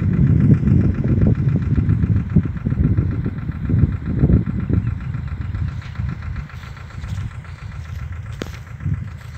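Powertrac 425 N tractor's diesel engine running steadily, louder in the first half and easing after about five seconds. A single sharp click comes near the end.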